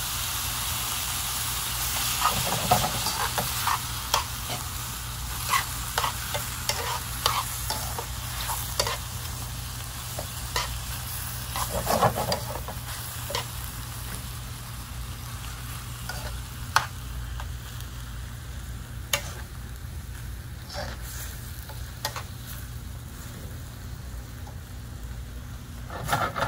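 Peppers, onions, mushrooms and tomato sauce sizzling in a steel skillet, with metal tongs clicking and scraping against the pan as the mix is stirred. The sizzle slowly quietens, and the clicks grow sparser in the second half.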